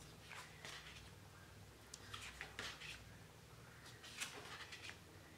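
Faint swishes of large oracle cards being slid across one another as they are turned over, in three or four brief bursts.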